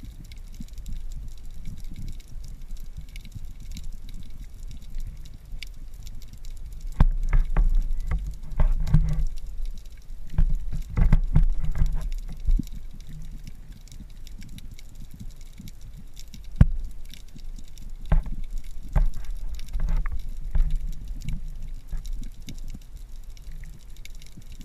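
Underwater sound picked up through a camera housing: a muffled low rumble of moving water with scattered clicks and knocks, swelling into louder rumbling spells about a third of the way in and again past the middle, with one sharp knock.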